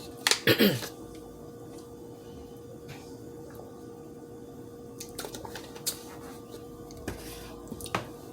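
A person briefly clearing their throat after food went down the wrong way, a short vocal sound falling in pitch, followed by a few faint clicks of eating and handling over a steady hum.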